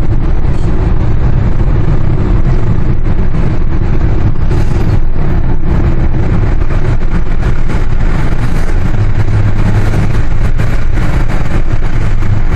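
Hyundai Sonata 2.0 GDI's four-cylinder engine and tyres heard from inside the cabin while driving, a steady low rumble. A low hum swells briefly about nine seconds in.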